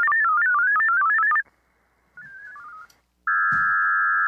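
VARA HF modem audio during a connection handshake: a fast run of stepping tones for about a second and a half, a quieter stepping reply of tones about two seconds in, then a steady, loud band of modem tone from about three seconds in.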